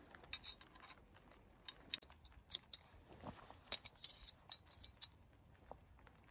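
Faint, scattered metallic clicks and clinks as a collapsible bucksaw is assembled by hand: the saw blade and tubular frame pieces knocking and snapping together.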